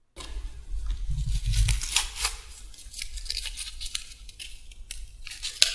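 A folded sheet of paper being opened out and handled, crinkling and rustling in a run of sharp crackles.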